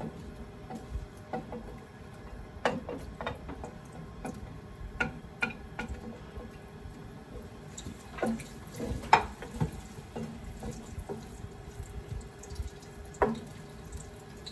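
Chopped onions sizzling in hot canola oil in a pot: a steady hiss with scattered small pops and crackles. A few sharp knocks stand out, from the wooden spoon against the plate and pot as the onions are scraped in.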